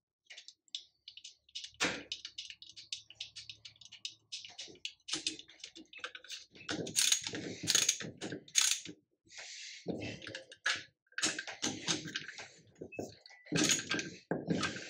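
Socket ratchet clicking in quick runs of strokes as it turns a fastener on the shaft end of a Bosch car alternator, with metallic clinks from the tool and housing. It comes in bursts with short pauses between.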